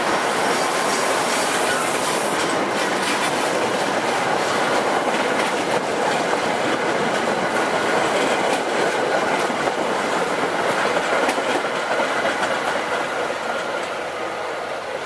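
MBTA commuter rail passenger coaches rolling past close by, their steel wheels clacking over the rail joints in a steady rush of rolling noise. The sound fades slowly toward the end as the cab car at the rear goes by.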